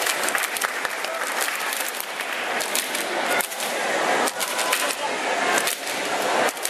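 Saman dancers clapping their hands and slapping their chests and thighs together in a fast rhythm. Voices chant along under the crack of the hands.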